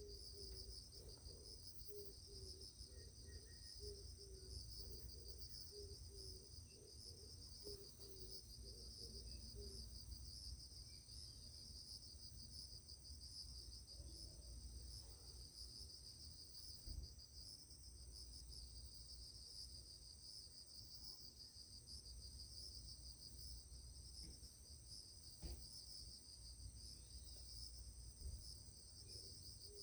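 Faint steady chirring of an insect chorus, high-pitched and finely pulsing, running on without a break.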